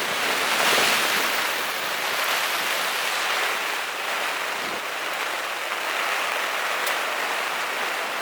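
A rainstorm: heavy rain and wind making a loud, steady rushing hiss, with a couple of faint ticks.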